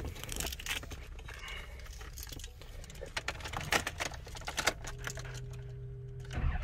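Keys jangling and clicking as the ignition key of a GMC pickup is handled and turned, with a steady low hum for about a second and a half near the end as the ignition is switched on; the engine begins to crank right at the end.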